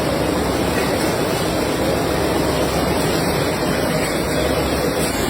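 Steady, dense noise of matchbox factory machinery running.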